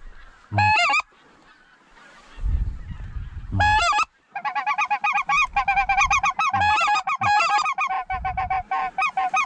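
Goose honking: two single honks, then from about four seconds in a fast, unbroken run of short clucking honks lasting some five seconds.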